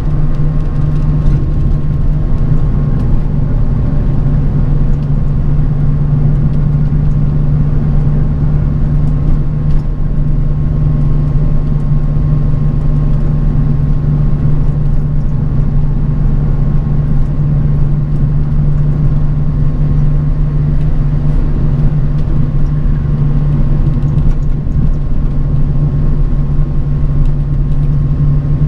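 A bus travelling along heard from inside the cabin: a steady low engine drone over road rumble.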